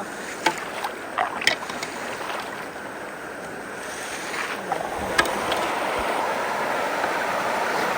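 Creek water rushing and gurgling into a freshly unclogged culvert inlet under strong suction, with a few short clicks. The rush grows louder about halfway through.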